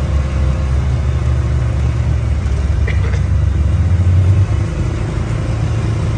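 Polaris Sportsman ATV engine running as the ATV rolls slowly, a steady low rumble that eases off about four and a half seconds in.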